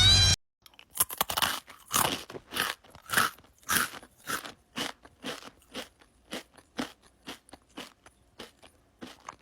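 Crunchy chewing, about two crisp bites a second, starting about half a second in, loudest in the first few seconds and then growing fainter.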